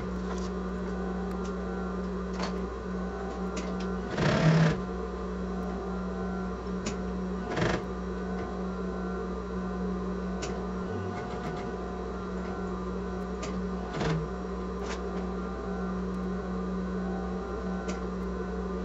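Sewing machine running steadily as it stitches a seam. A few sharper knocks break in, the loudest about four seconds in.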